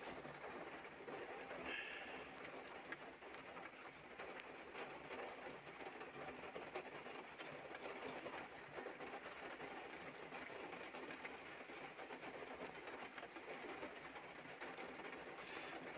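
Light rain falling, a faint, even patter, with a short bird call about two seconds in.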